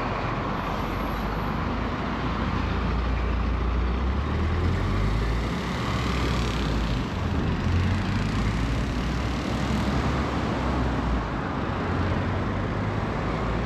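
Road traffic driving past: a box lorry and cars on the road, a steady rumble of engines and tyres that rises and falls as they go by.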